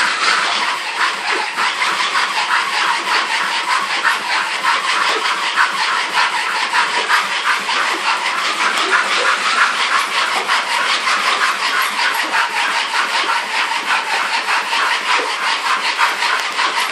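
A bull terrier running on a handmade wooden carpet mill: a quick, even clatter of paws on the carpet belt and the belt and rollers turning, over a steady hiss.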